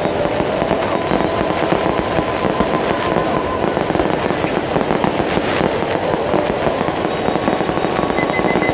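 Fireworks: shells bursting overhead in a dense, unbroken run of crackles and bangs.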